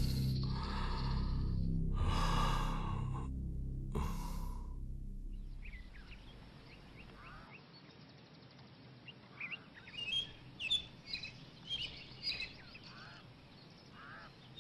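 Several heavy, gasping breaths over a low music drone in the first few seconds. The music then fades to a faint hush, and birds chirp in a string of short, rising calls from about nine seconds in.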